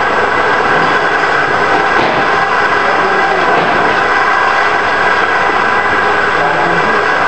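Machinery running with a steady, loud drone and a constant whine.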